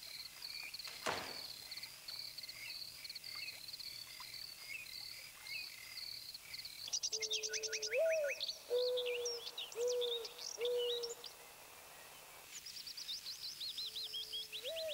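Birdsong ambience. Rapid, evenly repeated high chirps change about seven seconds in to a busier mix of sweeping high twitters and a series of low cooing notes. A single click sounds about a second in.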